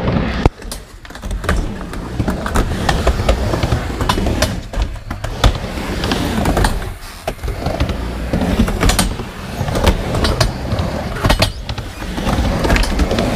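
Two skateboards rolling back and forth on a wooden mini ramp, wheels rumbling on the ramp surface, with repeated sharp clacks and knocks of boards and trucks against the ramp.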